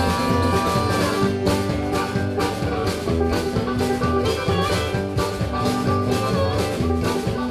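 Live band playing an instrumental passage without singing: guitar over a steady beat.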